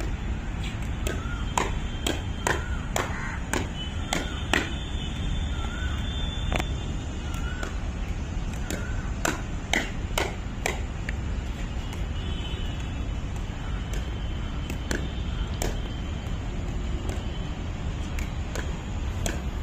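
Pickleball paddles striking a plastic ball in quick volley exchanges: a string of sharp pops, irregularly spaced and sometimes coming in fast runs, over a steady low background rumble.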